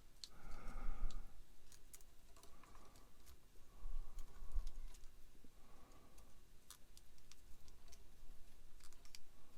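Light, scattered clicks and taps of small plastic model-kit parts and wire being handled and pushed together, with faint murmuring now and then.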